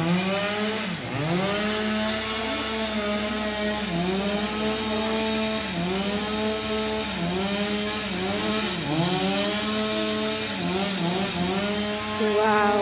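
Chainsaw cutting into a tree trunk: the engine runs at high speed and sags in pitch every second or two as the chain bites into the wood, then picks back up.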